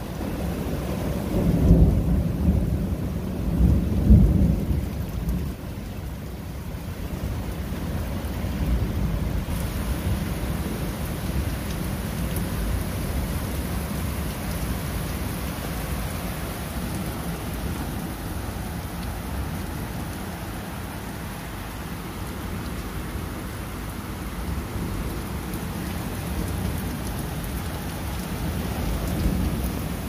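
Steady rain falling, with thunder rumbling: two loud rolls of thunder in the first few seconds, then a steady downpour with fainter distant rumbling.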